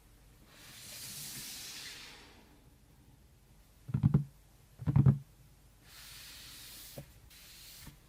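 A soft hiss that swells and fades, then two heavy dull thumps about a second apart, then more hiss broken by a small click.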